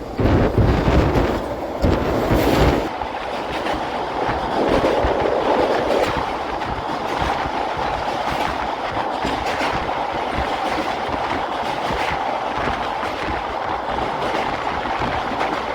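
Indian Railways express passenger coach running at speed, heard from inside at the window, wheels clattering over the rail joints. A heavy low rumble in the first three seconds gives way to a steadier running noise.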